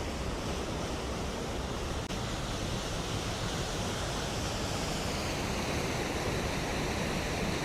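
Steady rushing roar of a waterfall's falling water, with a flickering low rumble.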